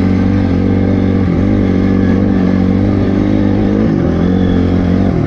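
Honda CRF250R's single-cylinder four-stroke engine running under throttle, heard from on the bike, its pitch dipping briefly and picking up again three times.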